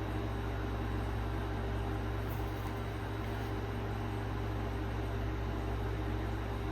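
Steady low mechanical hum with a faint hiss and no distinct events: the background noise of a room with a machine running.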